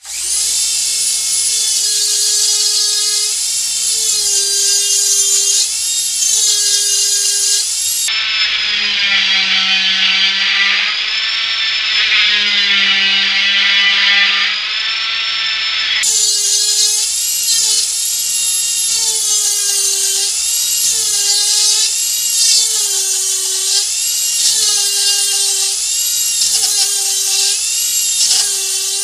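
Dremel 4000 rotary tool with a silver tapered carbide burr cutting into soft wood. It gives a high whine that dips in pitch each time the burr bites, every second or two, and runs lower in pitch for several seconds in the middle.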